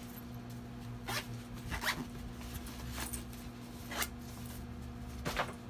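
Zipper on a small nylon tactical pouch being worked by hand in several short pulls, about five quick zips over a few seconds.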